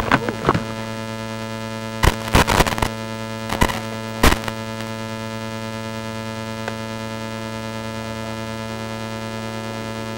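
Steady electrical hum with a buzz of many overtones on the FPV goggles' recorded video-feed audio, broken by a few short crackles of static between about two and four and a half seconds in.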